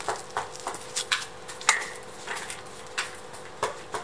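Mountain bike's RST coil-spring front suspension fork pumped up and down by hand, its preload adjuster wound tight, giving a run of sharp knocks at two to three a second, the loudest about halfway through with a brief ring.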